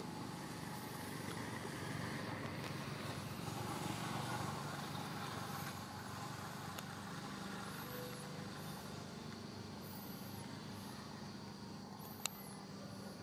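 Steady outdoor background hum like distant engine traffic, swelling slightly a few seconds in, with faint high chirps now and then and one sharp click near the end.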